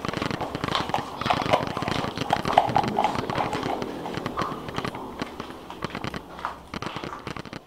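Rapid, irregular clicking and knocking that slowly fades toward the end.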